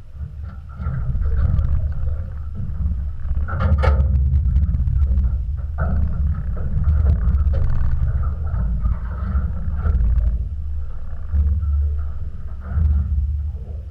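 Wind buffeting an action camera's microphone on an open boat at sea: a loud, uneven low rumble that surges and eases, with a brief sharp knock about four seconds in.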